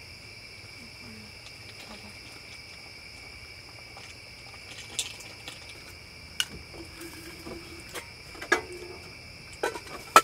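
Steady chorus of crickets, a constant high-pitched trill, with a few scattered sharp clicks and knocks, the loudest near the end.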